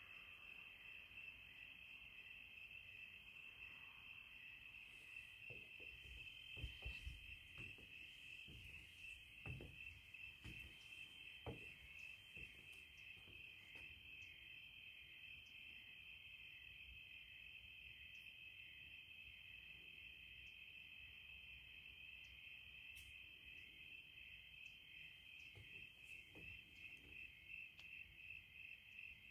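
Crickets chirping in a steady, evenly pulsing evening chorus. A few faint low thumps come in the first half.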